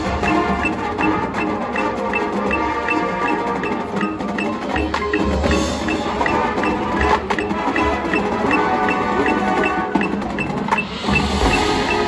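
Marching band playing held chords, with front-ensemble mallet percussion and a high tick repeating evenly about three times a second.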